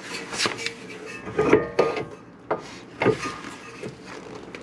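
Metal suspension parts clanking and scraping as a car's front steering knuckle and ball joint are worked by hand, with several sharp knocks, some ringing briefly.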